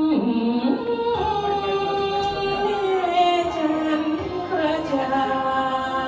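A woman singing a Thai song into a handheld microphone, holding long notes that slide from one pitch to the next.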